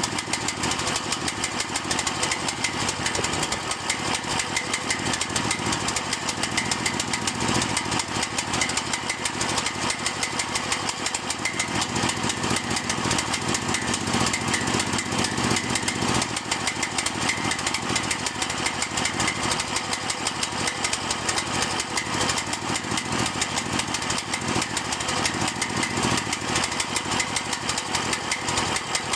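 Cael mini excavator's engine idling with a rapid, steady train of firing pulses and no pause or stall; it is the rough idle that the owner says ends in the engine dying.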